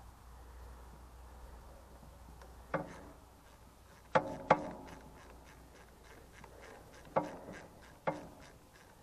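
Wrench and socket clinking against the steel bolts and cast valve block of an Ursus C-330's hydraulic lift control valve: five sharp, ringing metal clinks, two of them in quick pairs, over a faint background.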